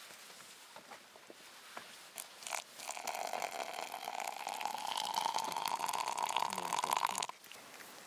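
Water poured from a pot into a plastic cup of dry granules, a steady pour rising slightly in pitch as the cup fills and stopping suddenly. A light knock comes just before the pour begins.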